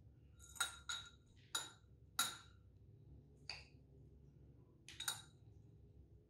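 Metal spoon clinking against a dish about seven times, at uneven intervals, as crushed Oreo biscuits are spooned in. Each clink is short with a brief ringing tone.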